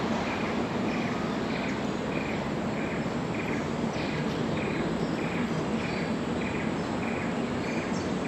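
An insect chirping in a steady rhythm, a short high-pitched pulse about twice a second, over a constant hiss of outdoor ambience with a faint low hum.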